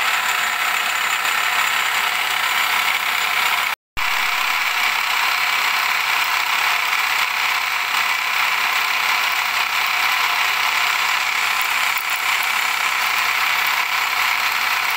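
Milling machine spindle running while an end mill cuts a keyway in a 4340 chromoly steel billet: a loud, steady metal-cutting noise. The sound cuts out for a split second about four seconds in.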